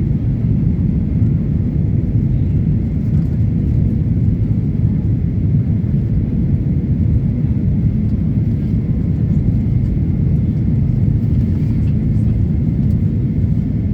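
Steady low rumble inside the cabin of a Boeing 737 as it lands, with engine and airflow noise and a faint steady whine.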